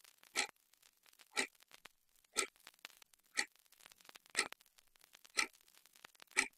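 A clock ticking, one sharp tick every second with fainter clicks between.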